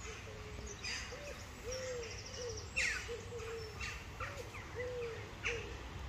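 A bird giving a steady series of short, low hoots, a little under two a second, with other small birds chirping higher up.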